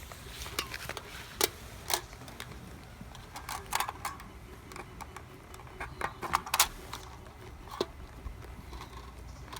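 Irregular sharp clicks and crackles as a red-hot knife cuts through a plastic toy gun magazine.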